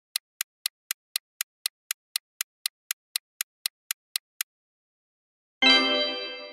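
Quiz countdown timer sound effect ticking steadily, about four ticks a second, stopping after about four and a half seconds. About a second later a bright chime rings and fades, marking the reveal of the answer.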